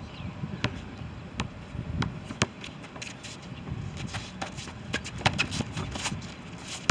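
A basketball bouncing on an outdoor concrete court, with sharp bounces a second or so apart at first that come quicker from about halfway through, mixed with players' shuffling and running footsteps.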